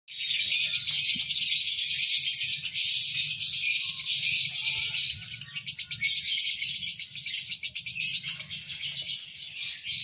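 A group of caged lovebirds chattering continuously in dense, high-pitched twittering and chirping, a little less intense in the second half.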